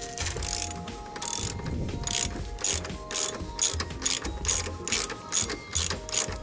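Socket ratchet wrench with an extension clicking in short back-and-forth strokes, about two a second, as it turns out a bolt at a scooter's rear wheel.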